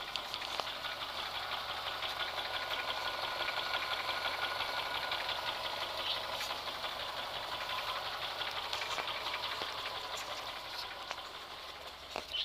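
1989 Nissan Sunny's engine running with a fast, even ticking clatter, swelling a little in the middle and easing off toward the end. A sharp click comes near the end.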